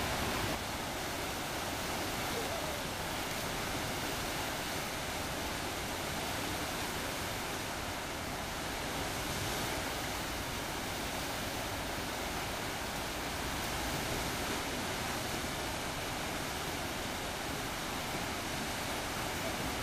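Steady rushing of water from wide river rapids, an even noise with no breaks.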